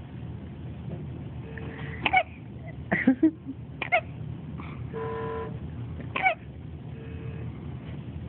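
A baby hiccuping: four short, squeaky hiccups, three about a second apart and the last after a longer pause, with a brief steady squeak between them.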